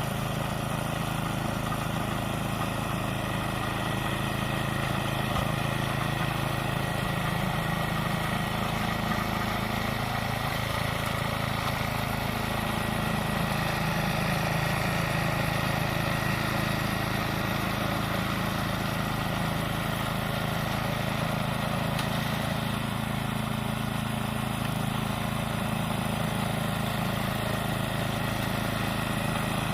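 Toro 828 two-stage snowblower's engine running steadily at a constant speed.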